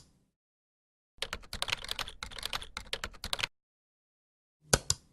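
A rapid run of sharp clicks lasting about two seconds, then a sharp double click near the end.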